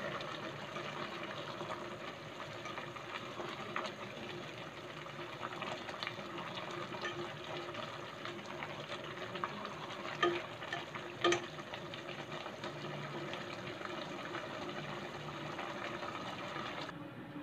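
Pot of chicken noodle soup boiling on the stove, a steady bubbling with fine crackle. Two sharper clicks come about ten and eleven seconds in.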